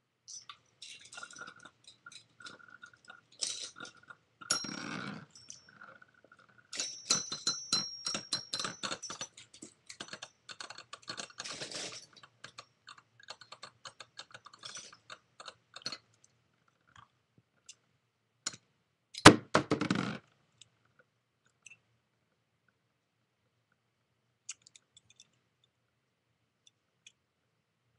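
Rock Leone and Dark Wolf Beyblade spinning tops whirling and clashing in a plastic stadium: rapid metallic clicking and clinking through the first half, a loud short clatter about two-thirds of the way through, then mostly quiet with a few stray ticks.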